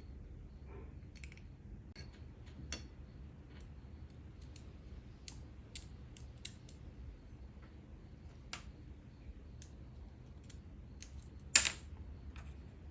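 Small metal carburetor parts and a screwdriver being handled, giving scattered light clicks and ticks, with one louder sharp click near the end.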